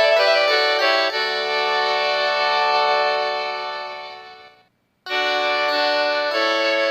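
Mobile phone polyphonic ringtones playing through the phone's speaker. One synthesized keyboard-like tune ends on a held chord that fades away. After a brief gap, the next ringtone starts about five seconds in.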